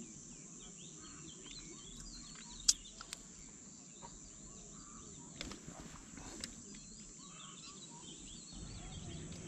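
Small birds chirping and twittering in the background over a steady high hiss, with a few sharp clicks, the loudest nearly three seconds in.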